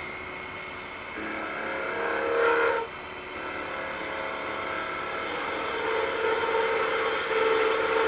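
Wood lathe running while a hand-held turning tool cuts the spinning spatula handle to a taper: a short cut about a second in, then a longer steady cut from about three and a half seconds on, with a steady hum through it.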